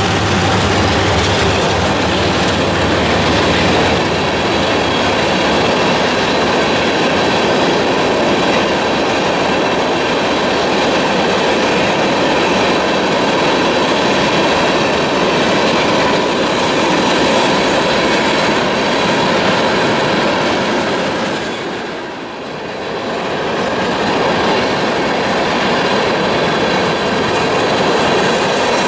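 A freight train of covered hopper cars rolls past over a grade crossing with a steady, loud rolling noise of steel wheels on the rails. A diesel locomotive's low engine hum fades out in the first second, and the sound dips briefly about three-quarters of the way through.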